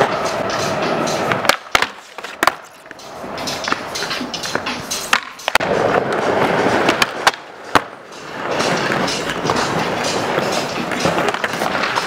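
Skateboard wheels rolling on a smooth skatepark floor, broken by several sharp clacks of the board being popped and landed, clustered about one and a half to two and a half seconds in and again between five and eight seconds. The rolling drops away for a moment after each cluster of clacks.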